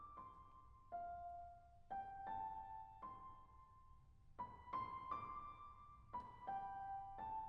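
Quiet background music: a slow piano melody played one note at a time, each note ringing and fading.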